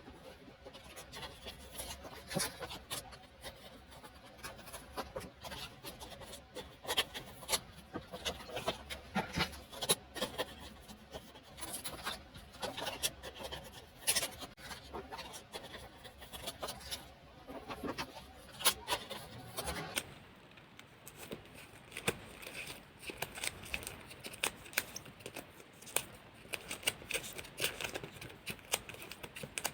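Paper and plastic packaging being handled: irregular rustling, light taps and scraping as the unboxed items are picked up and moved about, a little softer in the last third.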